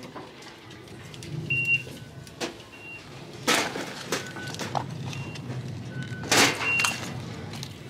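A pair of black Crocs clogs on a hanger being pulled off a store shelf and handled: rustling and clattering, loudest about three and a half seconds in and again about six seconds in. A low hum and a few short faint beeps sit underneath.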